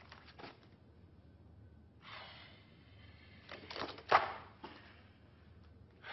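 Sheets of paper rustling as they are handled, then a sheet flung aside with a sharp, crisp flap a little after four seconds in.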